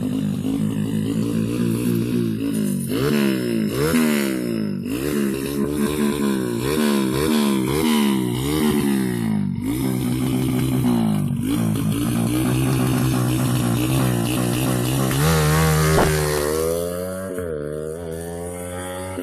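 A Honda Grand's single-cylinder four-stroke engine, bored to 130cc, is being revved during a tune-up. It idles for a few seconds, then is blipped about once a second with the pitch rising and falling each time. Near the end it holds a higher rev briefly and then settles back to idle.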